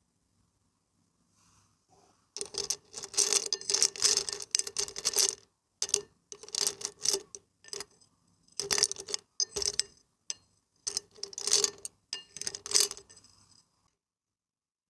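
Bursts of clinking and rattling of small hard objects, starting a couple of seconds in, in several clusters with short pauses between them, and stopping about a second before the end.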